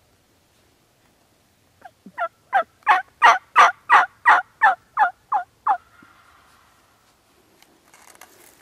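A series of about a dozen turkey yelps, about three a second, each breaking from a higher note to a lower one, loud and close, building up and then tapering off.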